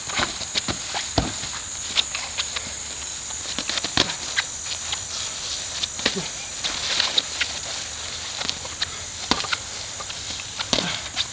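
Boxing gloves landing on gloves, arms and body in quick irregular thuds and slaps, with sneakers shuffling on grass.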